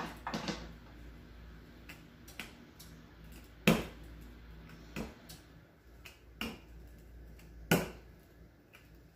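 Wooden rolling pin working dough on a wooden butcher-block counter, giving sharp wooden knocks every second or so. The two loudest knocks come about a third of the way in and near the end.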